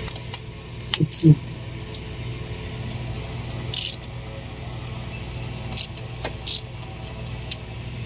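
Scattered metallic clinks and taps of hand tools and parts being handled during work on a diesel fuel injection pump, with a brief hiss in the middle, over a steady low hum.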